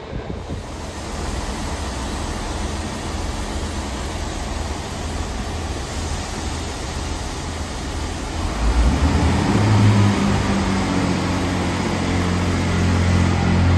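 Steady rushing noise, then about eight and a half seconds in the low drone of a Transport for Wales class 158 diesel multiple unit's engines comes in, louder and steady, as the unit draws slowly into the platform.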